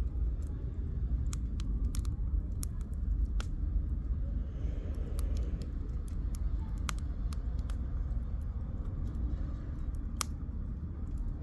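Firewood burning in a campfire, crackling with scattered sharp pops at irregular intervals, one louder pop near the end, over a steady low rumble.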